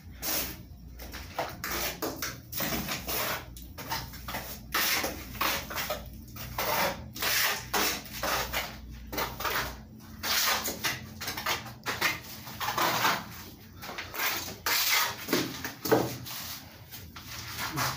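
A plastering hand tool scraping and spreading wet cement plaster over a block wall, in repeated strokes roughly one a second.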